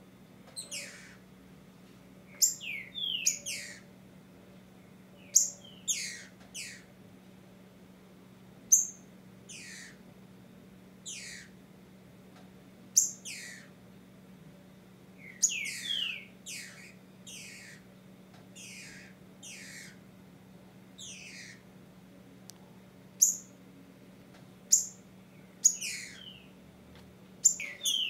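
Female green-winged saltator (Saltator similis) giving short, sharp calls that sweep steeply downward, in clusters of two or three every few seconds. This is the female's mating-solicitation call.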